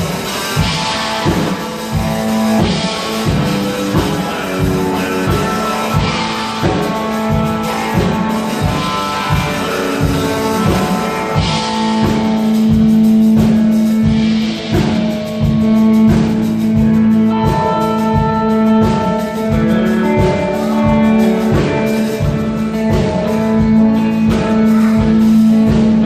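Live worship band playing an instrumental passage: electric guitars over a drum kit keeping a steady beat, with a low note held underneath.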